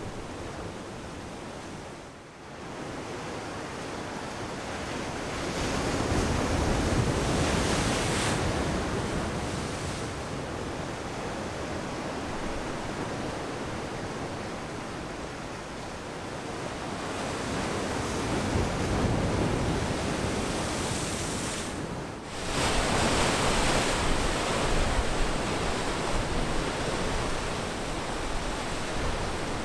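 Ocean waves and surf washing over the breakwall's boulders, a steady rushing that swells louder about a quarter of the way in and again through the last third, with wind rumbling on the microphone.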